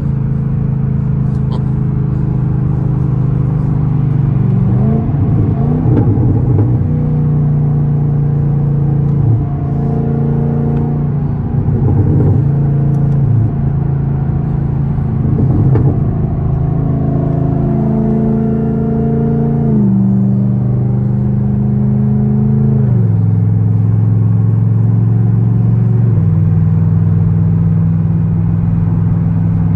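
Car engine droning inside the cabin while driving, its pitch holding steady for a few seconds at a time, then stepping up or down as the revs change, with a few brief rises and falls in revs.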